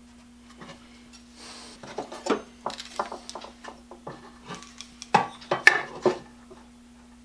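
Metal objects being handled on a workbench: a string of clinks and knocks, heaviest about five seconds in, over a steady low hum.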